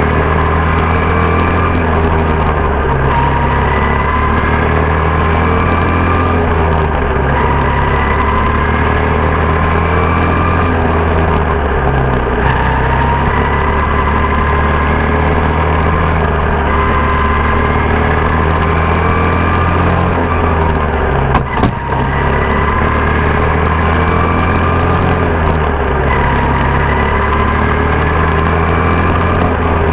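Small open-wheel dirt-track race car's engine running hard on board, its pitch climbing along each straight and falling back into each turn, about every four to five seconds. A brief bump breaks the sound once, about two-thirds of the way through.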